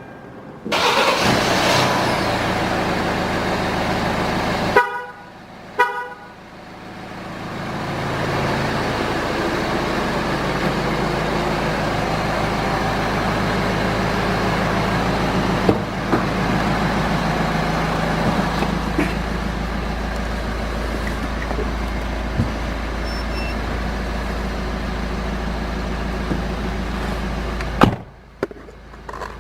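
Kia Sportage R with a remote-start system: two short horn chirps about a second apart, then the engine runs steadily and cuts off suddenly near the end.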